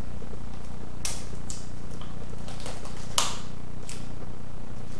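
Painter's tape being pulled and torn in a few short rips, the loudest about three seconds in, over a steady low hum.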